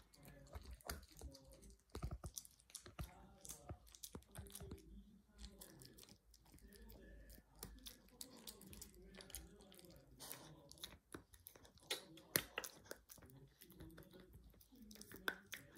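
Small curly-coated dog gnawing a hard dog chew held in a hand, with faint irregular crunches and clicks of teeth working the chew.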